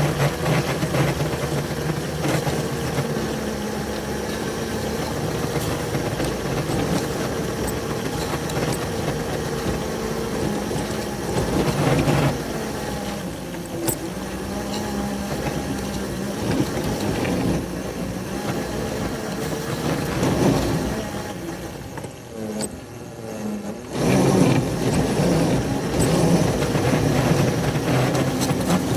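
Small railroad locomotive engines running steadily while pushing through deep snow. The sound drops away for about two seconds around two-thirds of the way in, then comes back.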